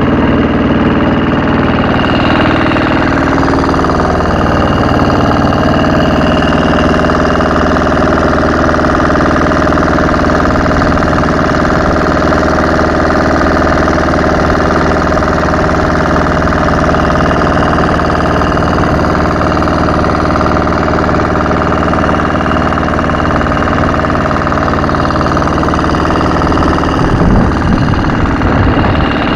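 Small inboard engine of a wooden motorboat running steadily at cruising speed, close by. A brief louder rumble comes near the end.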